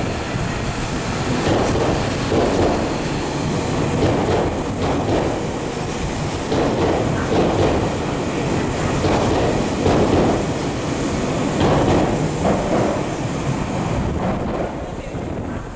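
Electric commuter train running along the track, a steady rumble with rhythmic clatter of wheels over the rail joints, easing off near the end.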